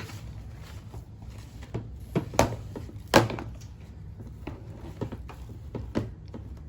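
A few sharp taps and knocks of things being handled and set down on a table, the loudest about two and a half and three seconds in, over a low steady hum.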